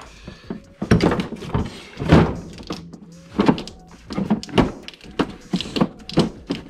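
Irregular knocks and clunks of snowmobile engine parts bumping against each other as a component is wrestled into place in the engine bay.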